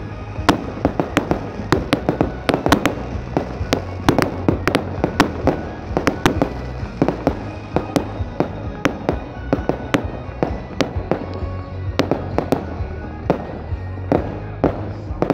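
Fireworks display: a rapid, irregular string of bangs from bursting aerial shells and rockets, several a second, with crackling in between. Music plays underneath.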